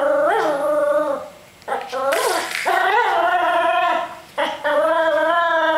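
Papillon puppy giving long, drawn-out whining cries, several in a row, each held for a second or more with short breaks between. A brief rustling noise comes about two seconds in.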